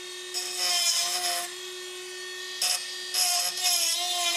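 Small handheld power grinder running with a steady whine, grinding metal on the car's underside in bursts: about a second of grinding starting half a second in, a short touch near the three-second mark, then a longer stretch near the end.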